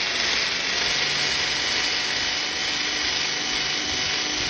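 Handheld electric power tool, a sander or polisher, running steadily at full speed on a painted ute tub while flattening drip marks in the clear coat.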